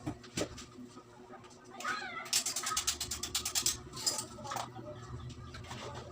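A brief animal call, a rising and falling meow, about two seconds in, followed by a quick run of sharp clicks lasting about a second and a half, with a few more clicks after.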